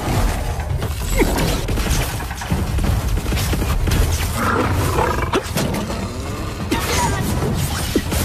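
Animated battle soundtrack: background music mixed with dense sound effects of energy blasts, clashing and impacts.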